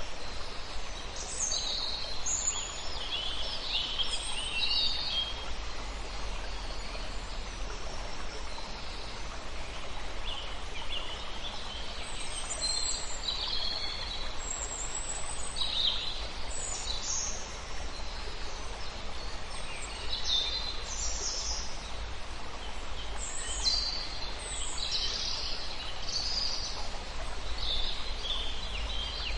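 Several birds chirping and trilling in short, high calls scattered throughout, over a steady background hiss and low rumble.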